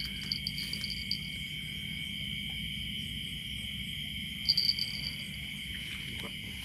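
Night chorus of crickets: two steady high trills run throughout, with a higher pulsing chirp that stops about a second in and comes back briefly at about four and a half seconds, over a low steady rush.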